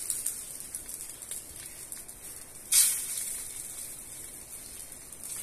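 Hot oil sizzling steadily in a wok around a frying egg, with a sudden louder burst of sizzle nearly three seconds in as a freshly cracked egg drops into the oil, fading over about a second.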